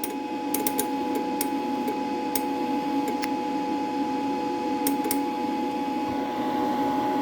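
Wire feed motor of a Sherman Digimig 200 Pulse MIG welder running, a steady hum with a whine, broken by scattered sharp clicks in the first five seconds.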